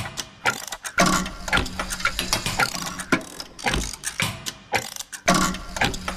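Clockwork-style mechanical clicking and ratcheting, a few sharp clicks a second at uneven spacing, with a low steady tone under parts of it.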